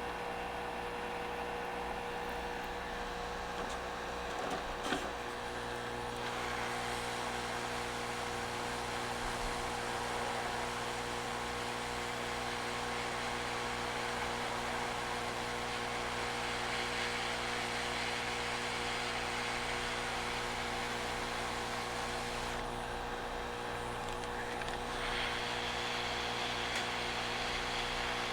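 Steady electrical hum of microsoldering bench equipment with a fan-like hiss of moving air. The hiss grows louder about six seconds in, thins out a little after twenty seconds in, and comes back a couple of seconds later. A small knock sounds around five seconds in.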